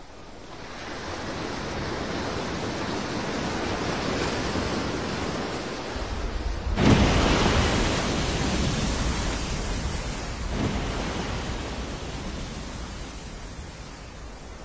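Sea and wind rushing over the microphone. About seven seconds in comes a sudden loud splash as a breaching humpback whale crashes back into the sea.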